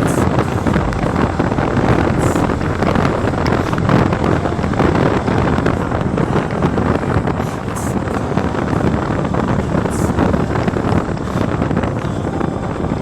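Steady rush of wind buffeting the microphone over the running noise of a moving vehicle on the road.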